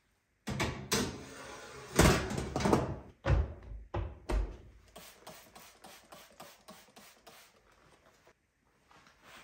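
A glass oven tray scraping as it is slid onto the oven's rails, with three heavy knocks as the tray seats and the oven door is swung shut. A run of light, quick clicks follows, fading out near the end.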